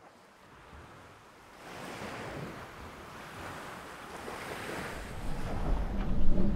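Ambience of sea waves and wind fading in from silence and slowly building, with a deeper low rumble swelling from about five seconds in.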